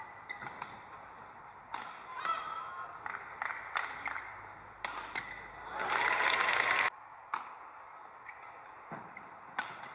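Badminton rally: sharp racket hits on the shuttlecock and squeaks of court shoes. About six seconds in, a loud burst of crowd cheering and applause breaks out and cuts off suddenly, then a few more shuttle hits follow.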